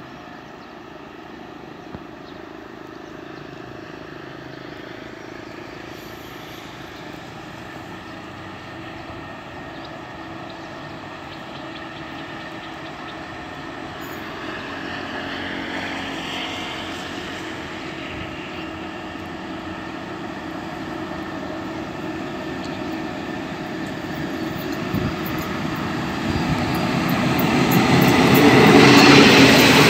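State Railway of Thailand Sprinter diesel multiple unit approaching: a steady drone from its diesel engines and running gear that grows gradually louder, swelling sharply in the last few seconds as the train comes alongside.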